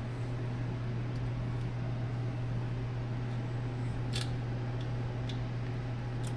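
Steady low machine hum, with a couple of small clicks about four seconds in and near the end.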